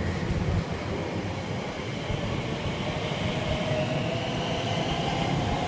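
A train running through the station at speed: a steady rail rumble, with a faint whine coming in near the end.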